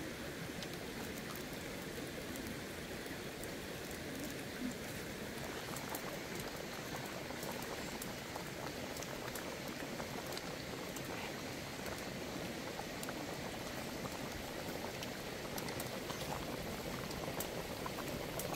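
Pot of chicken curry boiling, a steady bubbling hiss with scattered faint crackles.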